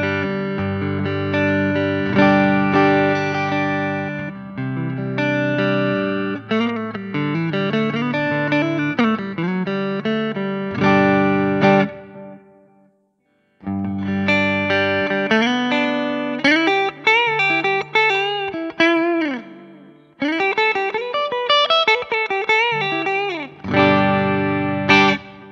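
Sterling Silo3 electric guitar fitted with DiMarzio Chopper and Transition pickups, being played: ringing chords first, then melodic single-note lines with bent notes. The playing stops for about a second near the middle, then resumes.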